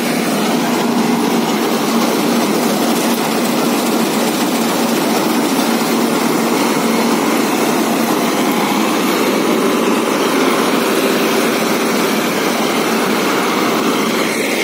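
Syan-built self-propelled combine harvester running while threshing paddy: a loud, steady machinery drone of engine and threshing drum with an even hum.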